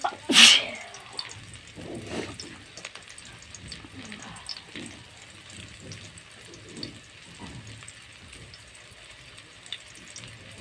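A person sneezes once, loudly, about half a second in, over a steady hiss.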